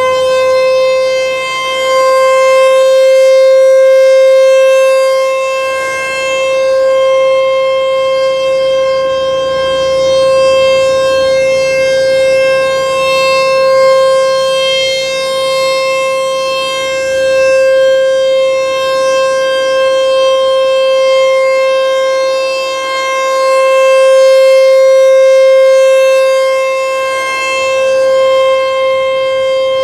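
American Signal T-128 outdoor warning siren sounding a steady tone, finishing its climb to full pitch right at the start and then holding. The volume swells and fades slowly as the rotating siren head sweeps past.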